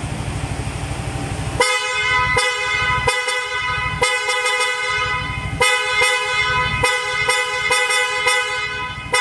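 Freshly wired dual electric contact horns on a Suzuki Skydrive scooter, sounding in a series of short and longer toots, about ten blasts, starting about a second and a half in after a low rumble. It is the first test that shows the new horn wiring works.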